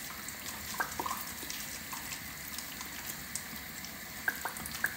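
Vinegar squeezed from a plastic squeeze bottle, trickling in a thin stream onto chopped vegetables and spices, with a few small drip ticks.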